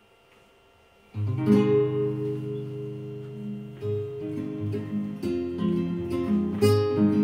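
Instrumental intro music that starts suddenly about a second in: strummed guitar chords.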